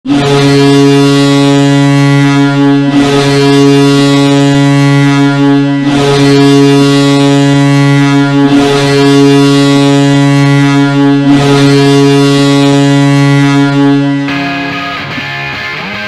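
Ice hockey arena goal horn sounding in five long, loud blasts of about three seconds each. Near the end the horn gives way to the goal song, with electric guitar coming in.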